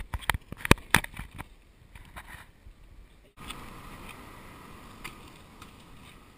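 Stunt kick scooter clacking on asphalt: a quick run of sharp knocks as the deck and wheels strike the ground during tricks. After an abrupt cut about three seconds in comes a steady rolling noise of wheels on the road.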